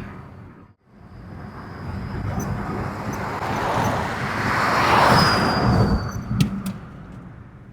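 A car drives past, its noise swelling to a peak about five seconds in and then fading. A faint thin high whistle from a cheap turbo whistle fitted to the exhaust tailpipe rides on it and dips in pitch as the car passes.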